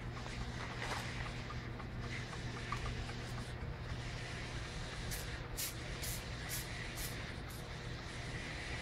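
Steady low hum of laboratory equipment, with a quick run of about six short, hissy plastic rustles a little past halfway as a plastic bag is handled.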